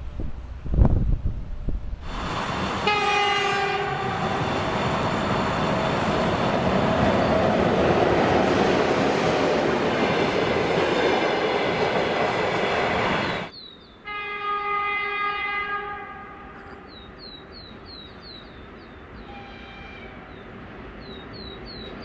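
A train horn sounds one long blast over the loud rumble of a moving train. It cuts off suddenly about halfway through and is followed by a second, shorter horn blast, after which a quieter rolling rumble carries on.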